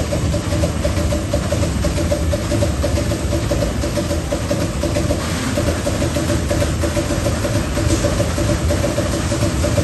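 TRUMPF TruPunch 5000 CNC punching machine at work on sheet metal: a fast, even run of punch strokes over a continuous machine hum.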